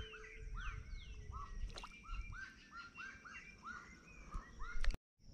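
A saracura (wood-rail) calling: a long run of repeated arching notes, with higher falling notes above them.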